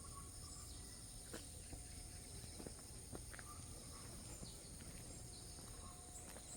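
Faint steady chirring of insects such as crickets, with a few soft clicks.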